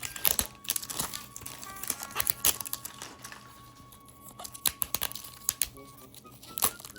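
Packaging of a mystery plush toy being handled and torn open by hand: irregular crinkling and crackling with sharp ticks.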